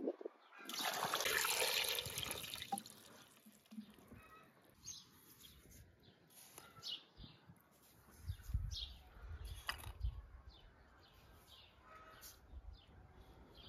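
A rush of about two seconds as something is poured into an aluminium pot of cut pumpkin, followed by a few light clinks of a spoon as sugar is spooned over the pieces. Birds chirp throughout.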